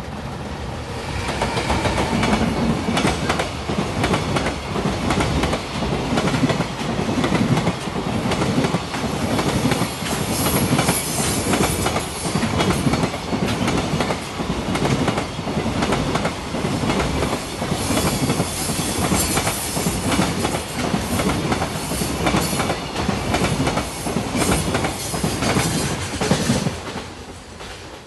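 EF210 'Momotaro' electric locomotive and a long rake of container wagons passing close by, the wheels clacking rhythmically over the rail joints. The sound fades away near the end as the last wagons go by.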